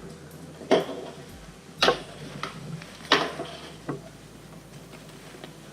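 Three sharp clacks roughly a second apart, with a couple of fainter knocks, as the backpack's waist-strap buckle and fittings are handled.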